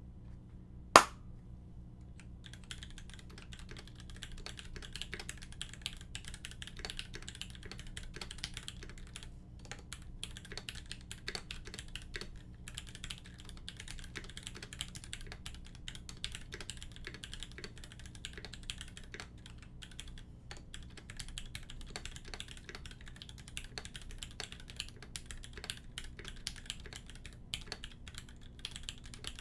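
Continuous fast typing on a custom mechanical keyboard: a polycarbonate-case Singa with Krytox 105-lubed C3 Tangerine linear switches on a brass plate, GMK keycaps and lubed screw-in stabilisers. A single sharp, much louder click comes about a second in, and the typing starts shortly after, with a few brief pauses.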